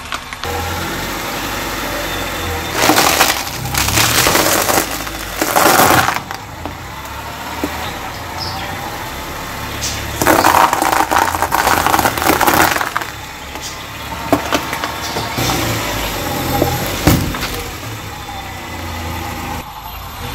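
Car tyre rolling over piles of dry elbow macaroni, crushing it in several bursts of crunching and crackling. The car's engine runs steadily underneath.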